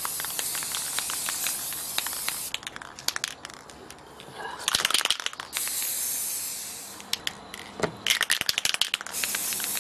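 Plasti-kote gloss aerosol spray paint can hissing in three separate bursts as a coat of paint goes on. Short clicky rattles fill the gaps between bursts.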